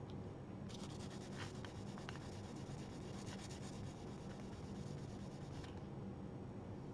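Very fine sandpaper rubbed lightly over the varnished surface of a painted icon board: a fast, dry scratching that starts about a second in and stops shortly before the end, smoothing down small raised specks in the finish.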